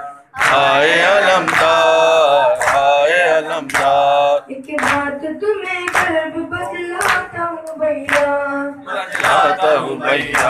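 Boys' voices chanting a noha, a Shia lament, in unison, with a hand struck on the chest in matam about once a second as the beat.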